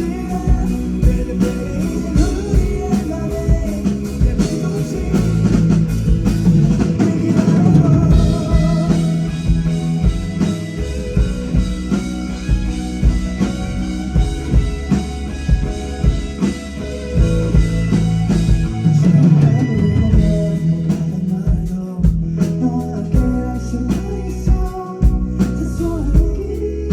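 Live rock band playing a song with a female lead singer, electric guitar, bass and drum kit keeping a steady beat.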